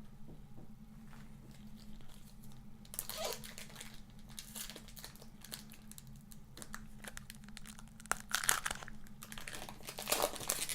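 Trading card packs from a blaster box being handled and torn open by hand: irregular crinkling and tearing of the wrappers, loudest about eight and a half and ten seconds in.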